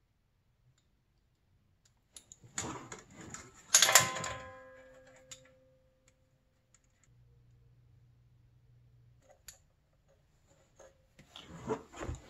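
Metal hand tools clicking and rattling against engine parts, with one loud metallic clank about four seconds in that rings on for a second or so. A few light clicks follow near the end.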